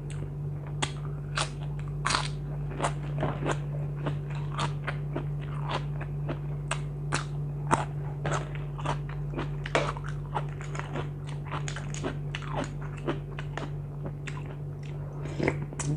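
Close-up chewing of crunchy raw vegetables, irregular crisp crunches and wet mouth clicks a few times a second, over a steady low hum.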